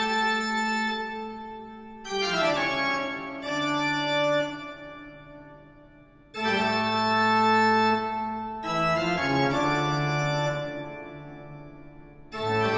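Organ music: a slow run of loud held chords, each struck and left to fade, a new one every two to four seconds.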